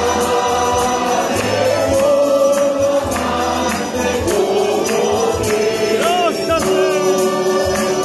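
Church choir singing a hymn to acoustic guitars and a piano accordion, with hand claps or a tambourine keeping an even beat.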